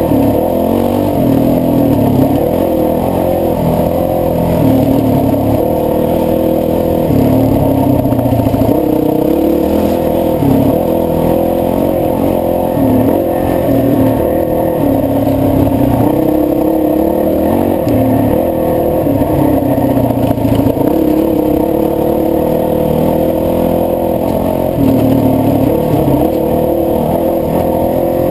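Honda CRF450X dirt bike's single-cylinder four-stroke engine running continuously under way, its pitch rising and falling every second or two with throttle and gear changes.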